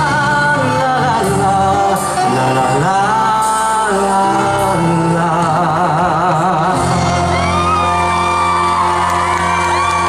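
Backing music with a melody of long, wavering held notes over a steady low accompaniment. From about seven seconds in, high-pitched screams and whoops from the audience rise over it.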